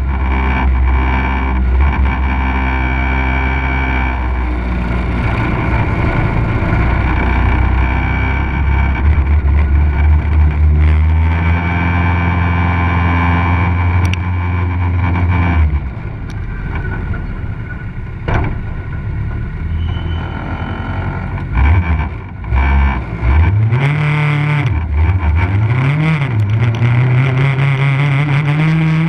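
Legend race car's Yamaha four-cylinder motorcycle engine running hard on an autocross run. The revs hold high and steady through the first half and drop about halfway through. The pitch then swings quickly up and down several times before climbing steadily again near the end.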